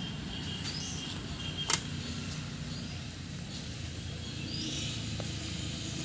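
Outdoor ambience: a steady low rumble with a few short, high bird chirps and a single sharp click about a second and a half in.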